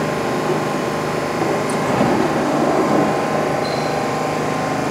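New York City subway train in the station, its equipment humming steadily with several steady tones over a noisy rumble.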